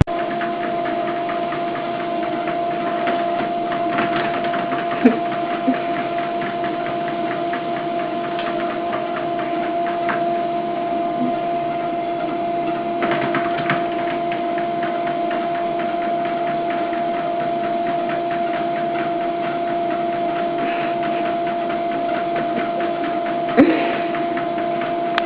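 A steady machine hum with two held tones, and a few short knocks about five seconds in and again near the end.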